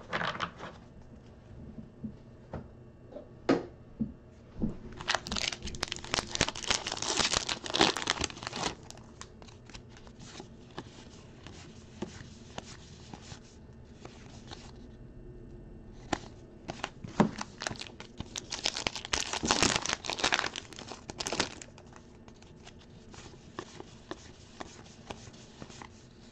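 Trading-card pack wrappers being torn open and crinkled by hand, in two bouts of rustling several seconds long, with occasional single clicks from cards being handled in between.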